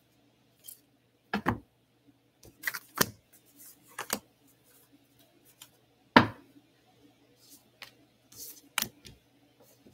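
Tarot cards being handled: a scattering of short taps and snaps as the deck is shuffled and cards are laid down, the sharpest about six seconds in, over a faint steady hum.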